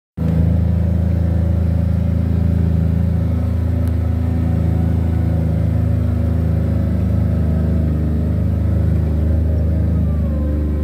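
Engine of the off-road vehicle carrying the camera, running steadily as it drives slowly along a sandy dirt trail; the low engine drone holds an even pitch and level.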